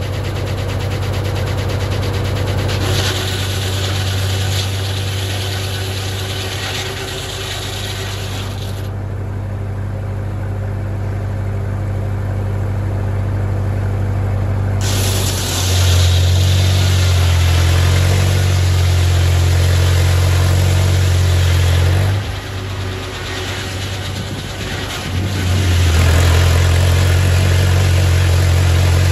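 A straight-piped Farmall Super M tractor's four-cylinder engine running steadily while it powers a sawmill. The engine note gets louder about halfway through, dips, and gets louder again near the end.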